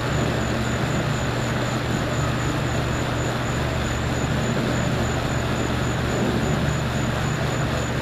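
Vintage Toastmaster 4425 box fan with a McGraw-Edison motor running on high: a steady motor hum under a rush of air from the blades. It makes a metal-on-metal noise that the owner means to cure with washers.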